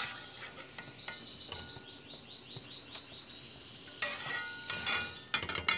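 Chickens calling: a quick run of high chirps, then a longer call about four seconds in, with a few light clicks near the end.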